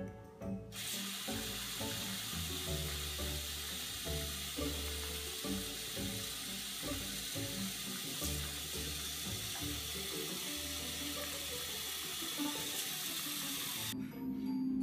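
Bathroom faucet running steadily into a sink, the stream splashing onto a cat lying in the basin, over background music. The water starts about a second in and cuts off near the end.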